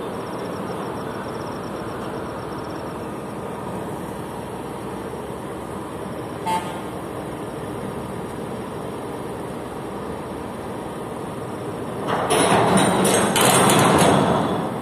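Steady drone of a ship's cargo-handling machinery, with one short click about six and a half seconds in and a louder, clattering stretch of about two seconds near the end.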